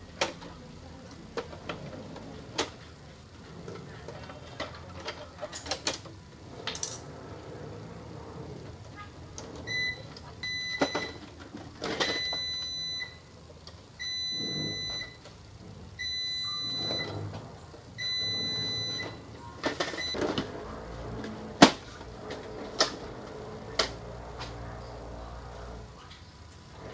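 Plastic clicks and knocks from an Epson L210 ink-tank printer being handled and put back together, the sharpest clicks coming near the end. Midway, an electronic beeper sounds about five times, each high steady beep about a second long with a second's gap.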